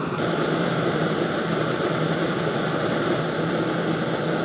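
Small screw-on canister gas camping stove burning at full flame under a lidded pot of water, giving a steady rushing hiss.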